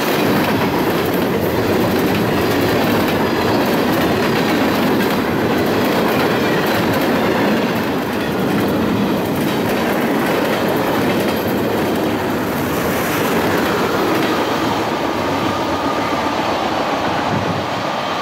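Freight train cars rolling past at close range: a loud, steady noise of steel wheels running on the rails, easing slightly near the end as the last cars pass and the train moves away.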